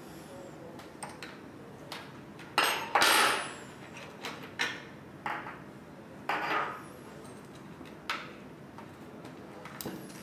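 Small metal bicycle parts and tools clinking and knocking as they are handled and set down: a string of separate knocks, the loudest a short clatter about three seconds in.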